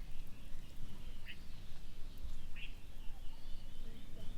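Rural outdoor ambience: a bird gives two short chirps, about a second in and again past two and a half seconds, over a steady high-pitched drone and a low rumble.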